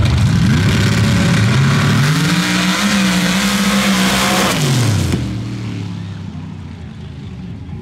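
Two modified dirt drag racers launching side by side at full throttle. The engine pitch climbs, dips once about a second and a half in, then climbs again and holds, and it falls away about five seconds in as the engines come off the throttle at the end of the pass.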